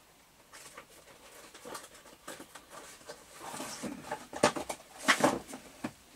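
Scattered rustling and small clicks and knocks of objects being handled, with a few louder knocks about four and a half and five seconds in.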